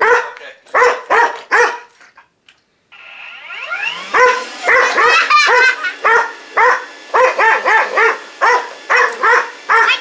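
A hunting dog barks at a vacuum cleaner: four barks, a brief silence, then the vacuum motor comes on with a rising whine. Over the vacuum's steady noise the dog barks rapidly, about three barks a second.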